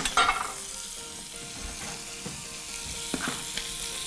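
Food sizzling in hot fat in a frying pan, a steady hiss.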